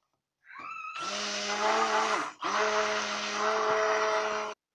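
Hand-held stick blender running in a bowl of oils, mixing in cornstarch: it spins up with a rising whine, runs steadily, stops for a moment a little past halfway, then runs again and cuts off suddenly near the end.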